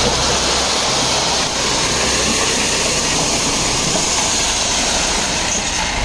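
Soil and stones sliding and pouring out of a raised tractor tipping trailer, a steady rushing rumble, with the tractor engine running underneath.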